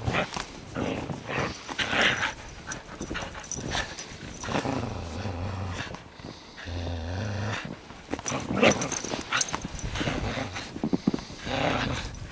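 Siberian husky growling in play while tugging on a leash held in a person's hand, with longer low growls in the middle.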